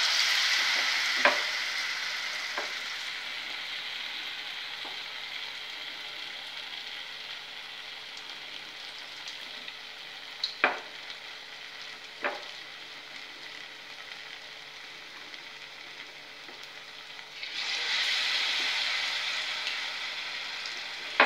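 Batter-coated chapati pieces deep-frying in hot oil: a surge of sizzling at the start that slowly dies down, then a second surge about three-quarters of the way through as more pieces go in. A few sharp taps stand out over the sizzle.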